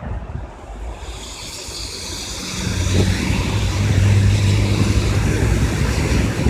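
Steady rain noise with wind buffeting the microphone, while a vehicle's engine hum swells from about two seconds in, loudest around four seconds, as it passes on the wet street.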